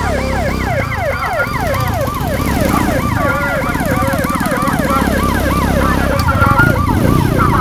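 Electronic vehicle siren in a fast yelp, its pitch sweeping up and down several times a second, over the low sound of running engines.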